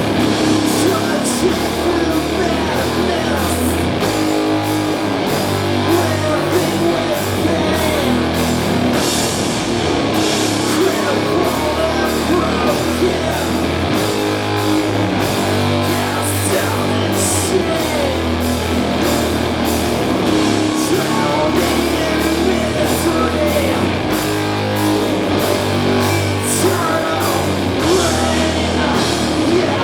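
A doom metal band playing live and loud: slow, heavy distorted guitars and bass holding low notes, with drums and cymbals struck about twice a second.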